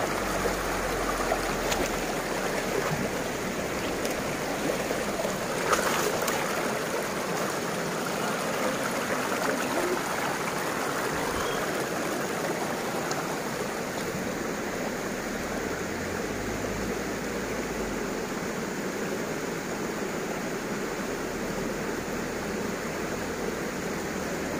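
Shallow, rocky river rushing and rippling steadily over stones and boulders. A brief click or knock comes about six seconds in.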